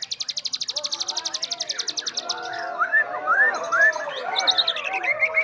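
Several white-rumped shamas (murai batu) singing at once, many songs overlapping. For about the first two and a half seconds a very fast, even high rattling trill stands out. Then come falling whistles and a run of quick repeated notes.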